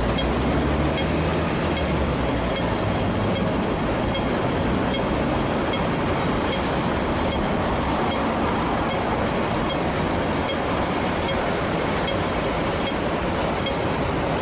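Hong Kong double-deck electric tram running past at close range, its steel wheels rolling on the rails, with a low hum in the first few seconds and street traffic noise underneath. A faint, evenly spaced high ticking repeats throughout.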